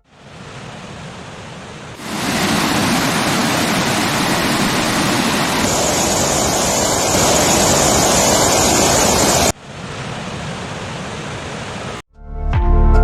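Waterfall rushing: a steady noise of falling water with no rhythm. It gets much louder about two seconds in, drops suddenly a few seconds before the end, and gives way to music near the end.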